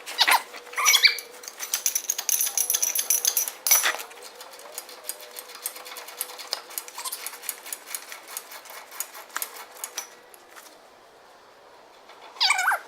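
Rapid metallic clicking and clinking of hand tools, dense for the first four seconds with one sharp clack near four seconds, then sparser ticks that die away about ten seconds in. A short burst of squeaky sounds comes just before the end.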